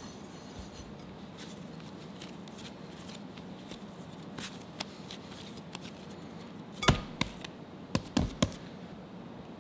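Hands rounding a soft whole-wheat dough ball, with faint handling clicks. Then come dull knocks as the dough is set into an oiled glass bowl and pressed down: one about seven seconds in and a quick group of three about a second later.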